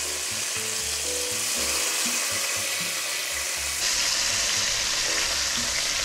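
Beef rolls frying in hot butter in a cast-iron Dutch oven, sizzling steadily. The sizzle gets louder about four seconds in, as a roll is turned with tongs onto an unbrowned side.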